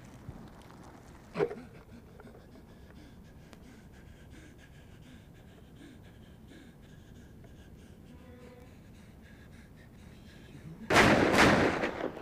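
A wounded man panting and groaning in pain, with a short sharp cry about a second and a half in. Near the end comes a loud blast lasting about a second.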